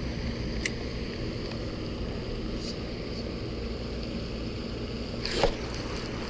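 Steady outdoor background noise with a low hum. A small click comes about a second in, and a brief swish near the end is the loudest sound.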